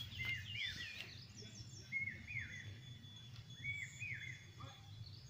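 A songbird repeating the same short, quick two-note whistled phrase about every two seconds, over a steady low background rumble.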